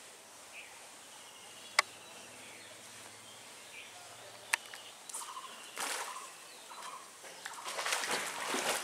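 Birds calling in the open, with two sharp clicks a few seconds apart. Near the end, a swelling burst of splashing water as a hooked hybrid catfish thrashes at the surface.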